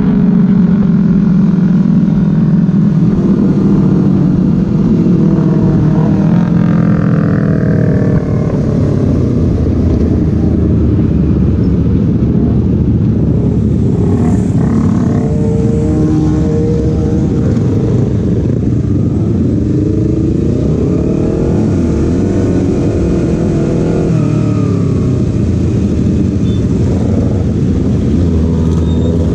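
Motorcycle engine running at road speed with wind rush, its pitch rising and falling several times as the throttle opens and closes.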